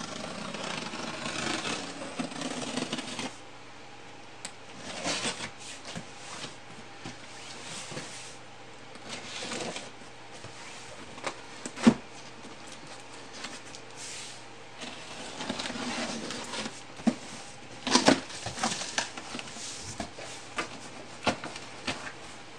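A cardboard shipping box being opened by hand: packing tape peeled and slit with a utility knife, cardboard scraping and flaps rustling. There is a sharp click about halfway through and a burst of crackling later on.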